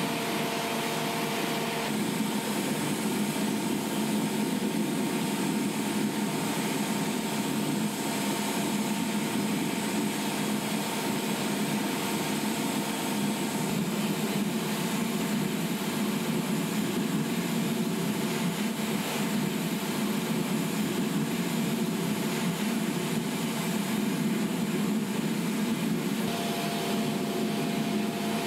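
Industrial waste-burning furnace in operation: a steady rushing noise of fire and blowers, with a few steady humming tones over it.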